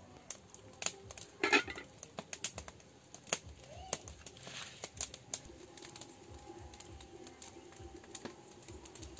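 Irregular light crackles and pops from a wood fire burning under large cooking pots, with a louder rustle about a second and a half in and a brief rising chirp about four seconds in.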